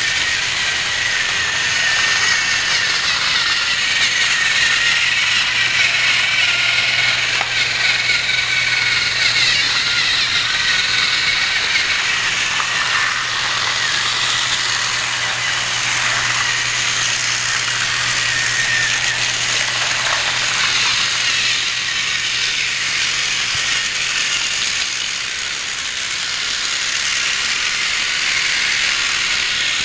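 Several battery-operated TrackMaster toy trains running on plastic track: a steady whir of their small geared motors with the rattle of plastic wheels and wagons.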